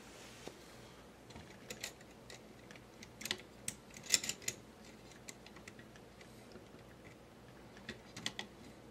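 Light plastic clicks and taps of toy missiles being slotted into a Transformers figure's plastic cannons, coming in small clusters.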